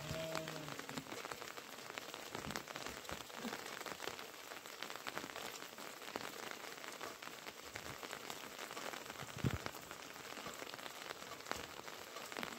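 Steady rain falling, with many separate drops ticking on the surfaces around. A single dull thump near the end.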